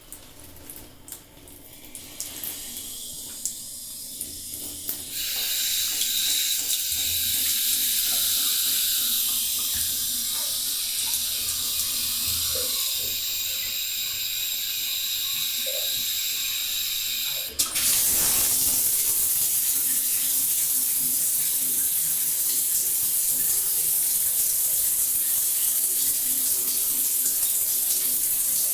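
Water running from a bathtub tap, starting faint and growing as the tap is opened, with a step up in flow about five seconds in. About two-thirds of the way through, a click and the water changes to a louder, brighter, steady rushing hiss.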